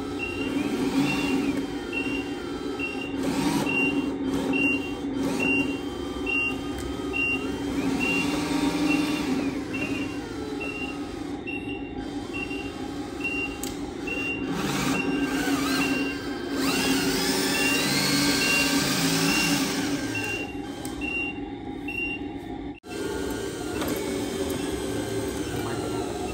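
An RC Volvo FH16 dump truck's sound module playing a diesel engine running with a reversing beeper, short high beeps about one and a half a second that stop near the end. Over it, a whine rises and falls as the truck moves, climbing steadily in pitch just past the middle.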